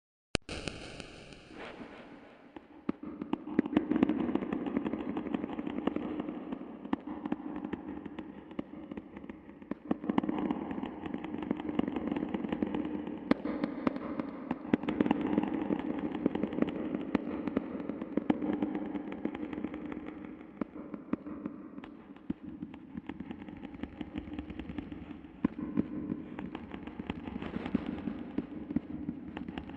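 Rapid, irregular knocking over a steady low hum, swelling and fading in loudness.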